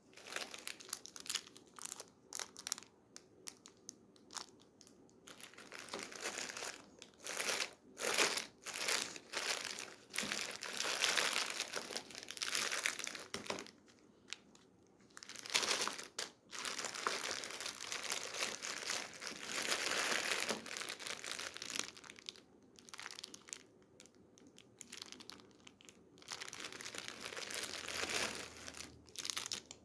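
Plastic candy wrappers and packaging crinkling and rustling as they are handled and torn open, in irregular spells with short pauses.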